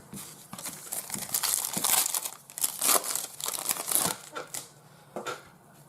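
Plastic trading-card pack wrapper crinkling as it is torn open and handled, a run of quick crackles for about four seconds that die away near the end.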